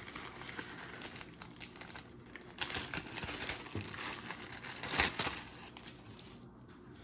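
Packaging crinkling and rustling as an external microphone accessory is unwrapped by hand, in irregular bursts with the loudest crackles about two and a half and five seconds in, dying down near the end.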